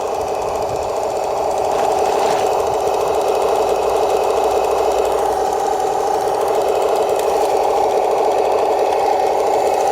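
RC tank's electric drive motors and gearboxes running with its metal tracks clattering: a steady buzzing whine with a fast rattle, a little louder from about two seconds in.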